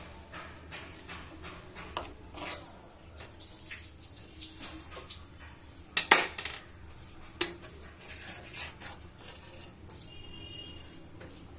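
Cookware clatter: a spatula scraping and tapping in a non-stick pan as fish curry is dished out, with a few sharp clinks of pans and plate, the loudest a double clink about six seconds in.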